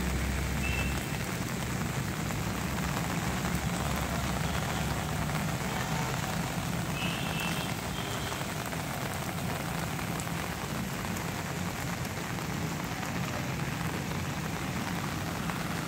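Steady heavy rain falling on waterlogged ground and puddles, with rainwater runoff pouring into a concrete collection chamber.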